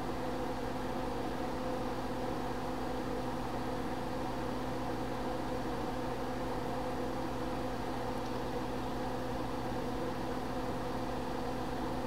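Steady machine hum with a few fixed low tones, like a small fan or motor.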